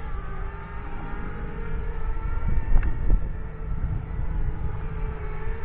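FPV racing quadcopter hovering, its brushless motors and propellers giving a steady multi-tone whine that wavers slightly in pitch and rises a little near the end, with wind rumbling on the microphone.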